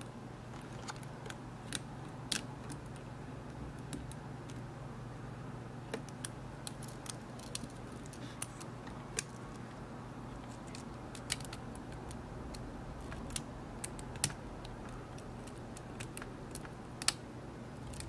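A steel lock pick working the pin stack of a 7-pin Assa Abloy brass lock cylinder under tension, giving faint, irregular metallic clicks and ticks, about a dozen sharper ones spread unevenly, over a steady low hum.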